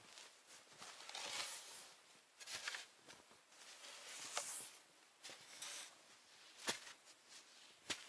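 Faint crunching and scuffing in snow as a person steps about and pulls wooden skis out of the snow, with a few sharp knocks, the loudest a little under seven seconds in.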